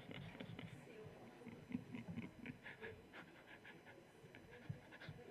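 Near silence: faint room tone with a few soft, scattered small sounds.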